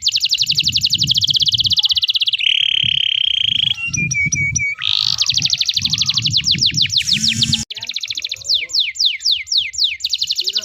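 Domestic canary singing a long, fast song: rapid trills of repeated notes, a buzzy held tone and series of quick descending sweeps, with a sudden break about three-quarters of the way through. A low fluttering rumble runs underneath.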